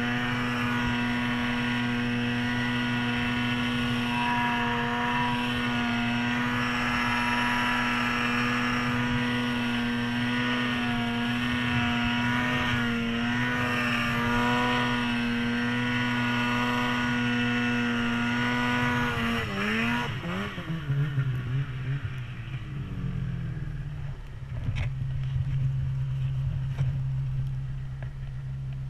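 Polaris PRO RMK 800 snowmobile's two-stroke engine running at steady high revs. About two-thirds of the way in the throttle comes off, and the engine note falls away to a lower, rougher running.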